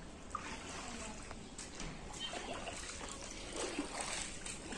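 Floodwater trickling and lapping softly against submerged concrete steps, with faint voices in the background.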